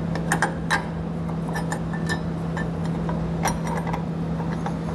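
Light metallic clinks and clicks as carriage bolts are slid through the holes of a steel air-spring bracket, several in the first second and a couple more near the middle, over a steady low hum.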